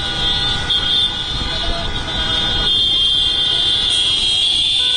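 A large pack of motorcycles riding together, engines running with a low rumble under several horns held down at once, making a steady blare of overlapping tones.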